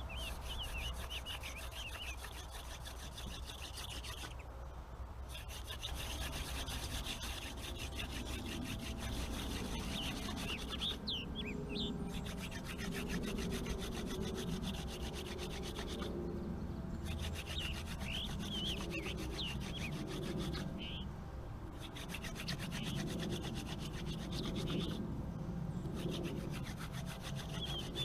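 Wooden spindle of a hand drill twirled between the palms against a wooden hearth board: a continuous rubbing with brief breaks every five seconds or so, as the hands go back to the top of the spindle. Birds chirp throughout.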